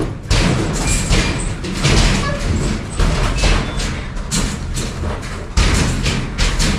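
Loud, irregular thuds and knocks, about two a second.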